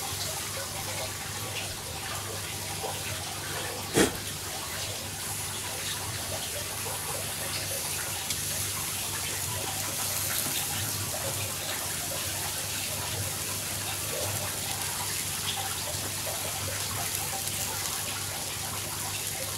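Barbecue-sauced turkey breast sizzling on a charcoal grill over hot coals: a steady hiss, with one sharp pop about four seconds in.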